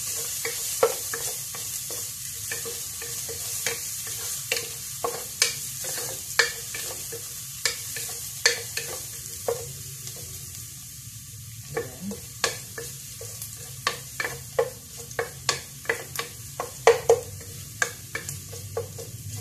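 Chopped garlic sizzling in a little olive oil in a pot, stirred with a wooden spatula that knocks and scrapes against the pot many times, with a brief lull in the stirring about halfway. The garlic is being sautéed until lightly browned.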